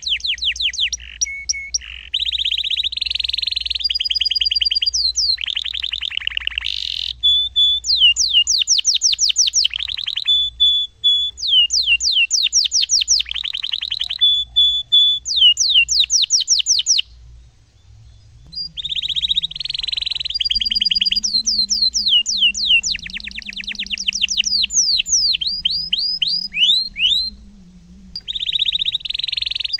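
Domestic canary singing a long song: rapid trills and rolls and fast runs of repeated notes that sweep down in pitch, with one short break a little past the middle.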